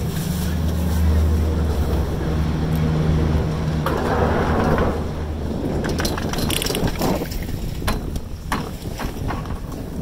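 Doppelmayr detachable quad chairlift terminal machinery running with a steady low hum, a short rush of noise about four seconds in, then a run of sharp clacks and clunks between about six and nine seconds in as the chair's detachable grip rolls along the terminal rail and clamps onto the haul rope.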